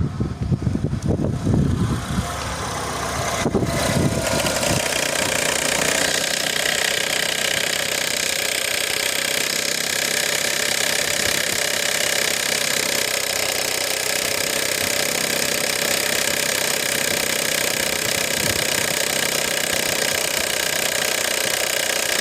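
Renault Fluence's 2.0 L MR20DE engine running at idle with a steady rattling, knocking noise from the timing-chain side, which the owner traces to the accessory belt tensioner. Gusty low rumbling on the microphone for the first few seconds, then the engine sound holds steady.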